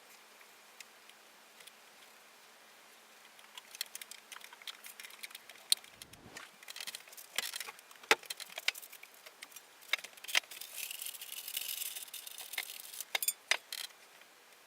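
Small metal parts clinking and rattling as they are handled, beginning a few seconds in as a run of sharp clicks and clinks, with a short stretch of scraping a little past the middle.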